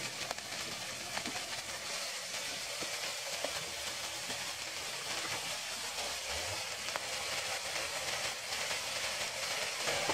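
Bean sprouts, chives and pork belly sizzling in hot oil in an electric frying pan, a steady frying hiss with a few faint ticks.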